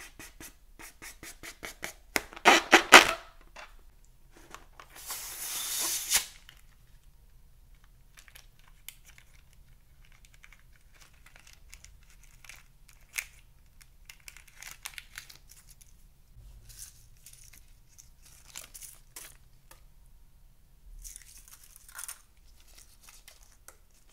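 Hands working a slime-filled latex balloon: fingers rubbing and squeaking on the rubber, loudest in a dense burst about two and a half seconds in, and a hiss around five seconds. Later come scattered sharp snips and crackles as the balloon is cut with scissors and its rubber is torn and peeled off.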